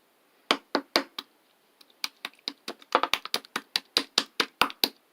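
Slime being worked by hand, giving a run of sharp clicks and pops. A few come spaced out, then they come faster, about five a second, from about three seconds in.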